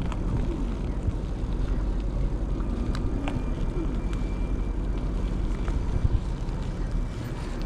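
Wind rumbling across a GoPro's microphone while riding, a steady low buffeting with a few faint clicks and rattles from the ride.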